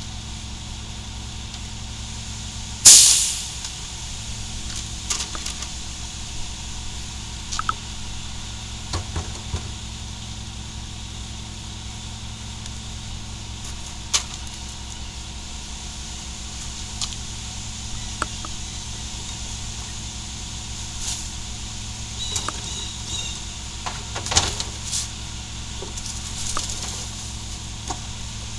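Caterpillar-powered Mack MR garbage truck idling steadily. A loud, short burst of air hiss comes about three seconds in. Scattered knocks and bumps follow as trash bags and a plastic cart are emptied into the rear hopper.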